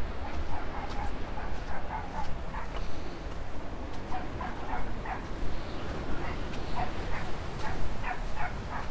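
A dog barking and yipping repeatedly in short quick calls, over a steady low rumble of wind on the microphone.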